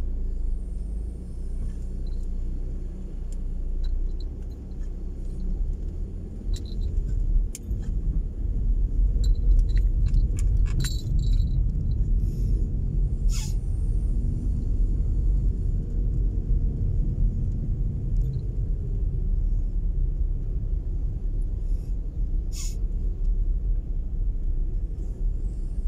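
Low rumble of a car's engine and tyres heard from inside the cabin, growing louder about eight seconds in as the car gets moving, with a few light scattered ticks.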